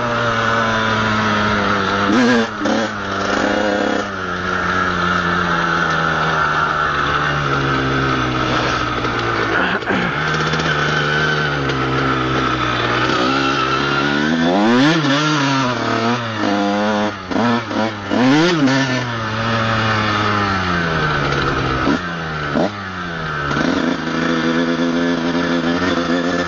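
Honda CR125's single-cylinder two-stroke engine running under way, heard from the rider's helmet. The revs rise and fall several times, most sharply around the middle and again near the end. The bike is being ridden gently on a burnt clutch.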